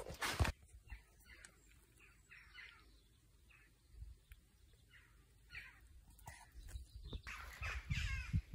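Faint bird calls: a short falling chirp repeated about every half second. Near the end, rustling and low knocks of things being handled.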